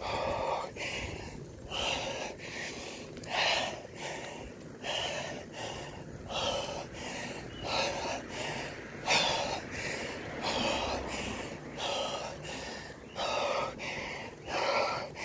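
Hard, rapid panting of a road cyclist riding uphill, quick regular breaths in and out through the open mouth, a sign of heavy exertion on a steep climb.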